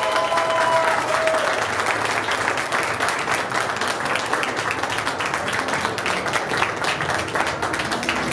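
A group of people clapping in sustained, steady applause, with a voice calling out over it in the first second or so.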